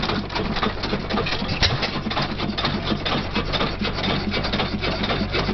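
Olds hit-and-miss stationary gas engine running, a fast, steady mechanical clatter over a low hum. One heavier thump about a second and a half in, the engine firing once while it otherwise coasts, as a hit-and-miss governor works.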